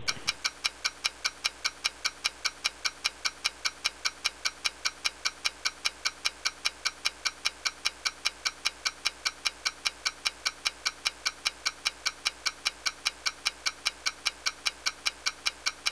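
Fast, perfectly even clock-like ticking, about five ticks a second, steady throughout.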